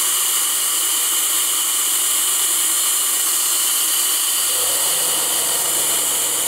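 Compressed air hissing steadily out of leaking steam-pipe fittings inside the smokebox of a 5-inch gauge C32 model steam locomotive under an air test with the regulator open. The leaks at the pipe unions spoil the smokebox draught and cause the poor steaming.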